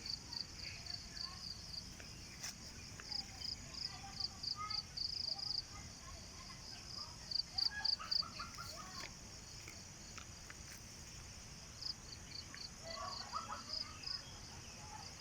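Insects chirping in rapid pulsed trains, swelling and fading in bouts, over a steady rural outdoor background with scattered faint calls lower down.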